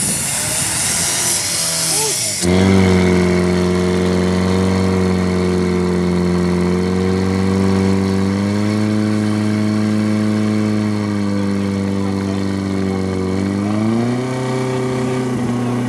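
Portable fire pump's petrol engine running at high revs under load, driving water through the hoses to the spray nozzles. A loud hiss comes first, then about two and a half seconds in the engine note jumps up and holds steady, rising a little in pitch twice.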